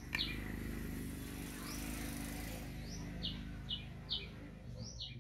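A small bird chirping over and over in short, high notes, about two a second. For the first two and a half seconds a steady hiss with a low hum covers the chirps, then fades.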